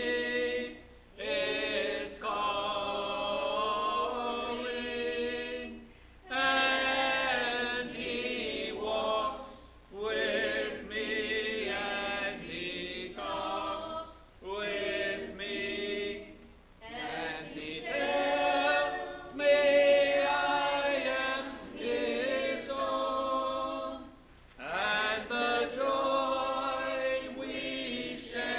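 Congregation singing a hymn a cappella, with no instruments, in phrases of a few seconds broken by short pauses for breath between lines.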